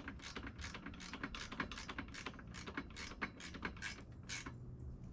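Wrench tightening a bolt on a miter saw stand's wheel axle: a steady run of sharp metallic clicks, about three a second, stopping shortly before the end.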